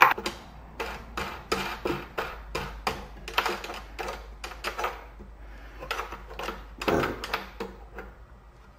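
Irregular light clicks and knocks, a few a second, of hardware being fitted by hand on a spline jig's side fence: a knob and T-track bolt being handled and turned. A sharper click comes right at the start and a firmer knock near the end.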